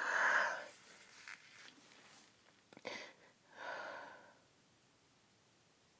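A woman's breathing and sniffing just after a sneeze: a breathy exhale at the start, a short sharp sniff about three seconds in, and another breath out shortly after.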